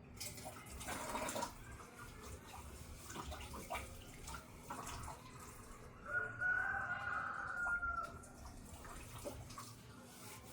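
A dog gives one long, drawn-out whine of about two seconds, about six seconds in, among scattered short wet smacking clicks.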